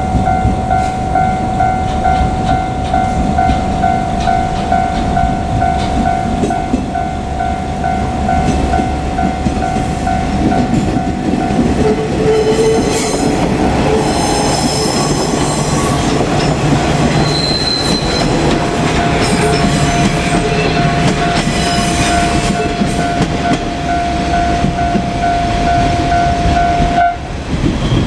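A Japanese level-crossing warning bell rings steadily while a two-car KiHa 47 diesel railcar passes, its engine rumbling and its wheels clattering and squealing on the rails. The crossing bell cuts off near the end, once the train has cleared.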